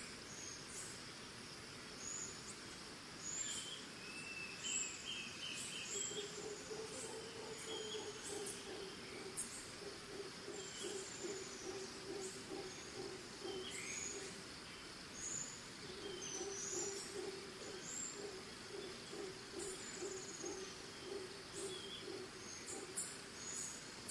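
Costa Rican tropical forest ambience: a steady high drone of crickets and insects, with many birds chirping and whistling short calls throughout. A low pulsing call starts about a quarter of the way in and repeats in two long runs.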